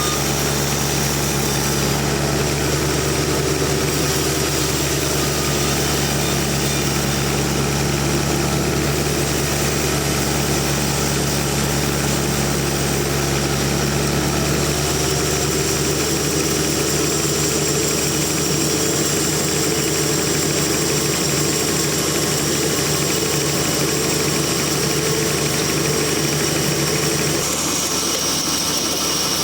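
Sawmill machine running steadily with a constant engine drone. Its tone shifts slightly near the end.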